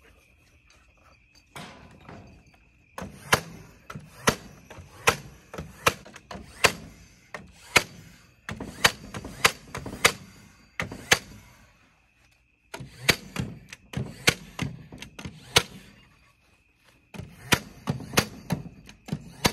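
Cordless framing nail gun firing nails into the lumber of a wooden frame. The shots come in quick runs of several, about two a second, with short pauses between the runs.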